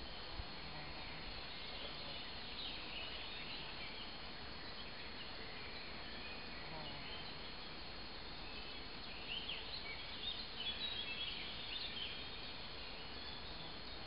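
Woodland ambience: small birds chirping and calling. The calls grow busier about two-thirds of the way through. Underneath is a steady faint hiss and a continuous thin high tone.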